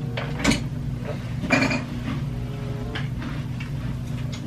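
Spoon clicking and scraping in a plastic cereal bowl while eating, a few short separate clinks, over a steady low hum.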